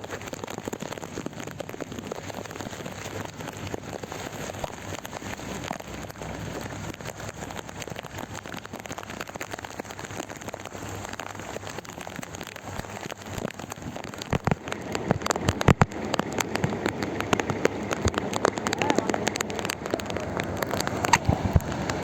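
Heavy rain falling steadily, with many individual drops tapping on surfaces. It gets louder and denser about two-thirds of the way in.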